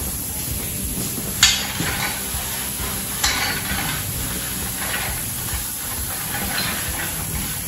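Handling noises from work on a spoked motorcycle wheel: four short scrapes or clinks spaced over a steady hiss.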